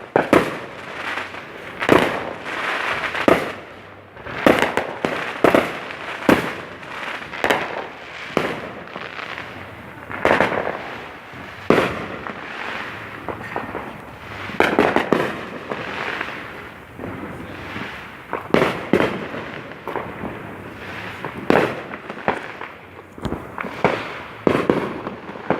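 Fireworks going off continuously: a string of sharp bangs at irregular intervals, one or two every second or so, with crackling between them.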